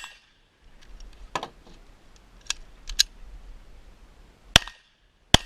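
Gunshots: one at the very start, then several seconds of lighter metallic clicks and handling noise, then two more shots less than a second apart near the end.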